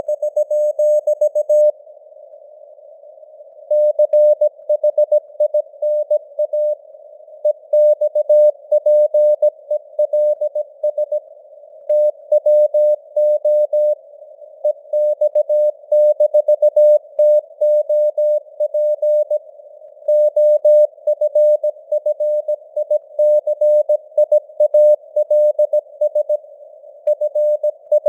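Morse code (CW) at 17 words per minute: a single steady tone keyed on and off in dots and dashes over a narrow band of simulated radio hiss, with slight fading in signal strength (QSB). There is a pause of about two seconds near the start.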